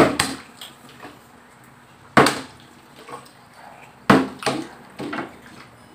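Plastic water bottle flipped and landing on a tabletop: a few sharp knocks, roughly every two seconds.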